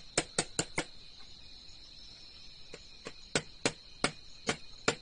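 Sharp, irregular clicks and taps from hand work on a car radiator: four quick ones at the start, then a pause, then more at roughly half-second intervals. Under them runs a steady high-pitched insect trill, like crickets.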